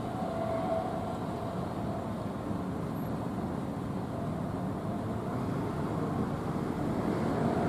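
City street traffic with a streetcar running on street tracks: a steady rumble and hiss that grows louder near the end.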